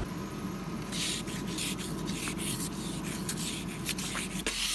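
Plastic ice scraper scraping frost off a car's window glass in a quick run of short strokes, starting about a second in.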